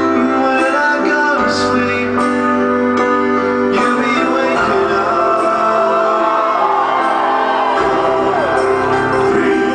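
Live music: a woman singing over instrumental accompaniment.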